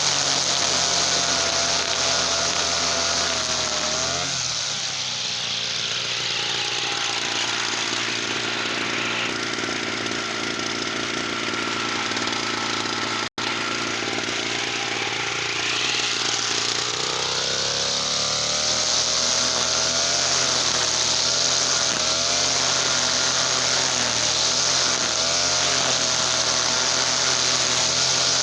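Easyman TL33 two-stroke petrol brush cutter engine running at high revs, dropping to lower revs about four seconds in, then revving back up to full speed after about seventeen seconds. The sound cuts out for an instant near the middle.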